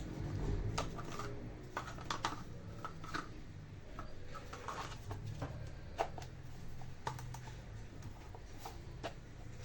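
Irregular light clicks and taps of small hard objects being handled, over a low steady background hum.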